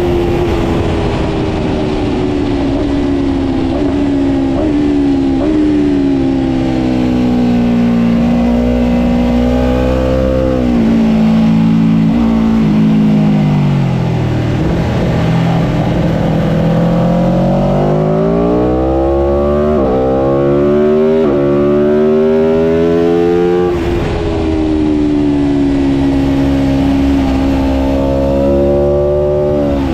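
Aprilia RSV4 1000 RF's V4 engine at racing speed. The pitch falls to its lowest about halfway through as the bike slows for a corner, then climbs hard in several steps through quick gear changes, and falls again near the end.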